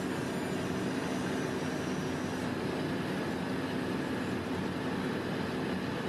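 Heavy diesel engines of asphalt paving machinery running steadily, a constant low hum with a few held engine tones, while asphalt mix is fed into a paver's hopper.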